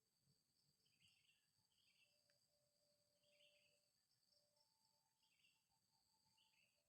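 Near silence with faint steady insect trilling and a few short, faint chirps.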